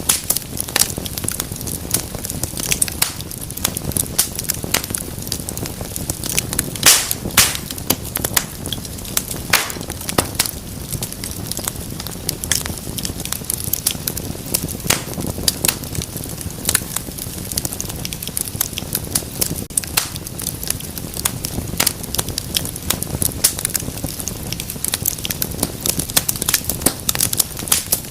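Wood fire burning in a fireplace, with a steady low rumble of flames and constant sharp crackles and pops, a couple of louder pops about seven and ten seconds in.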